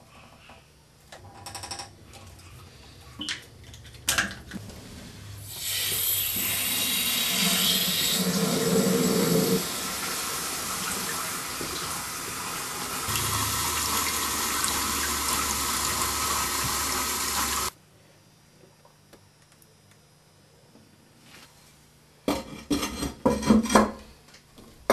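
Caroma dual-flush toilet flushing: a few light knocks, then about twelve seconds of water rushing through the bowl that cuts off suddenly.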